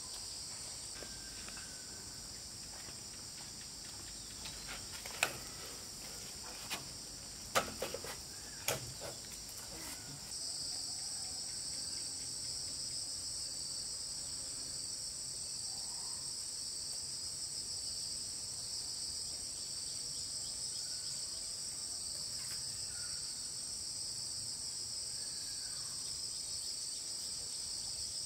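Steady high-pitched chorus of insects, stepping up in level about ten seconds in. A handful of sharp knocks sound between about five and nine seconds in.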